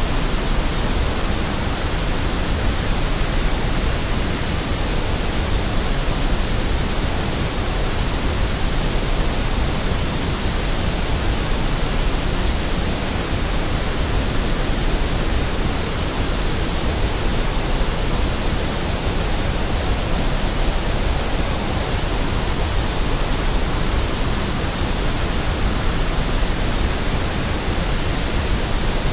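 Steady white noise: an even, unchanging hiss spread across the whole range from low to high.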